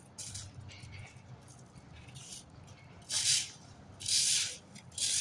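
A cat eating chunks of roasted turkey from a plate close by, with short bursts of wet chewing and licking; the two loudest come about three and four seconds in.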